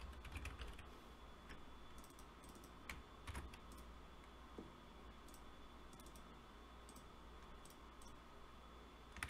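Faint computer keyboard typing and mouse clicks: a quick run of keystrokes in the first second, then a few separate clicks about three seconds in and one near the end, over a low steady electrical hum.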